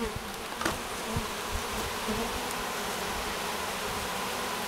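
A freshly installed package of honey bees buzzing steadily as a mass in the hive.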